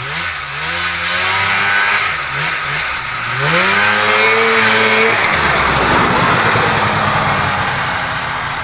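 Vintage Polaris snowmobile's two-stroke engine revving up twice, its pitch climbing and then holding each time. About five seconds in, the sound turns into a loud, steady rush as the sled drives past, easing off slightly near the end.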